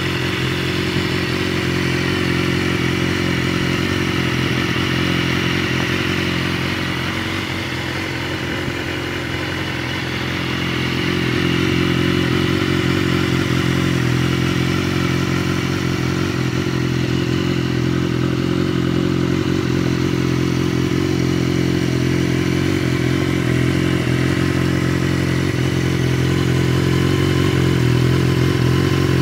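BMW S1000RR's inline-four engine idling steadily, getting slightly louder at times as the camera nears the bike.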